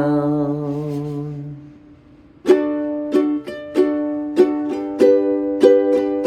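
A man's held sung note with vibrato ends about a second and a half in. After a brief pause a small plucked string instrument comes in, strumming even ringing chords, about one every half second or so.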